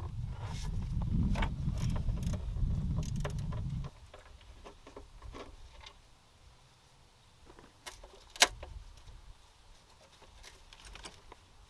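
Metal hand tools and fasteners clinking and clicking while parts are unbolted in a car engine bay. A low rumble during the first four seconds stops abruptly, followed by scattered light clicks and one sharp click about eight seconds in.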